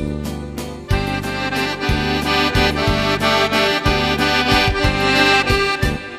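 Accordion music in a traditional style: a melody of held chords over bass notes that change about once a second, dipping briefly at the very end.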